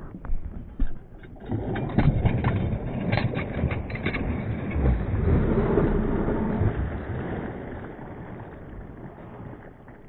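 Musky striking a lure at the surface beside a boat, churning and splashing the water. Sharp splashes come in the first few seconds, the sound is loudest in the middle, and it dies down near the end.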